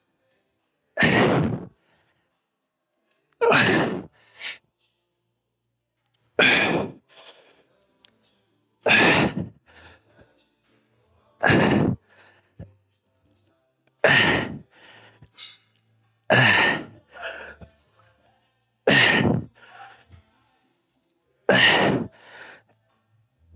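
A man's forceful breaths out in time with the repetitions of a single-leg dumbbell Romanian deadlift: a sharp exhale about every two and a half seconds, nine in all, each followed by a shorter, fainter breath.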